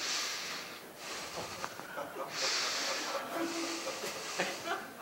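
A man sniffing loudly and deeply into a clip-on microphone, about four long sniffs each just under a second, as if smelling the people he greets.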